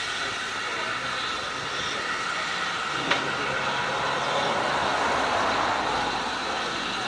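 LSWR M7 class 0-4-4 tank steam locomotive in steam at low speed, with a steady hiss of steam that swells and grows loudest about five seconds in. A single sharp click sounds about three seconds in.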